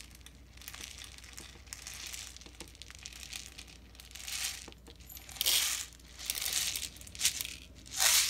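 Plastic spice packet crinkling as whole black peppercorns are scooped out with a measuring spoon and tipped into a plastic blender cup, in several short bursts that come mostly in the second half.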